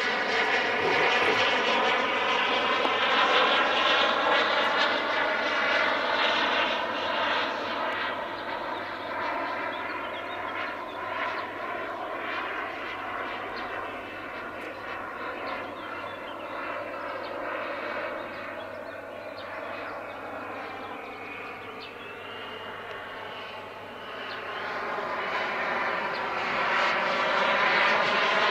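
Small gas-turbine engine of a radio-controlled model jet in flight, a steady rushing whine. It is louder over the first few seconds and again near the end as the model passes closer, and quieter in between, its pitch wavering slowly as it moves.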